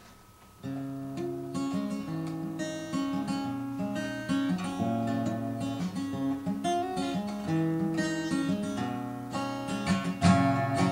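Solo acoustic guitar playing a song's intro, a steady pattern of picked and strummed chords that starts about half a second in.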